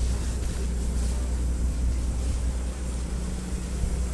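A tour schooner's engine running steadily under way: a constant low drone, with a hiss of water and wind over it.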